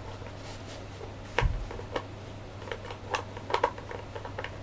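Small clicks and taps of hard plastic model-kit parts being handled and fitted together, irregular and light, with one louder knock about a second and a half in. A steady low hum runs underneath.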